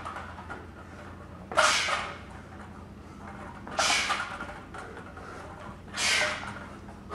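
A man's sharp, forceful exhalations, three of them about two seconds apart, timed with repeated explosive barbell cleans.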